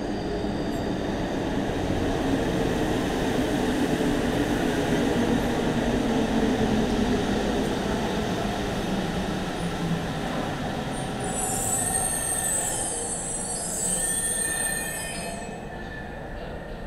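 Metro train running through an underground station: a steady rumbling noise, then a high, wavering metallic squeal for about four seconds, starting around eleven seconds in.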